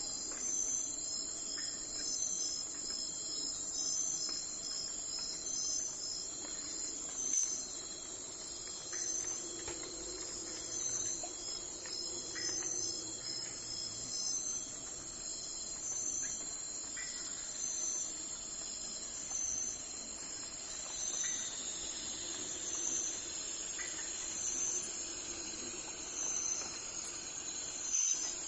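Crickets chirping: a steady high-pitched trill with a regularly repeating chirp a little more than once a second, over a faint low hum.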